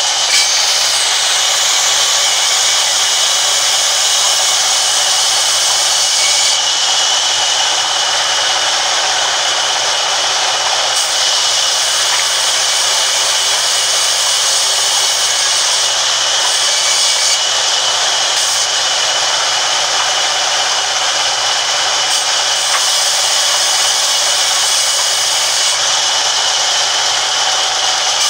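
Large sawmill band saw running and ripping wooden planks fed across its table: a continuous loud rushing noise with a thin steady high whine.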